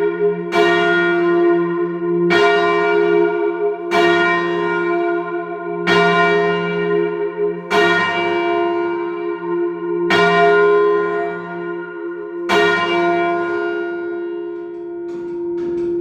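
One heavy church bell being rung up, struck by its clapper about every two seconds with the strokes spacing out as it swings higher, each stroke leaving a long ringing hum. The last stroke falls about three-quarters of the way through, and the hum then dies away.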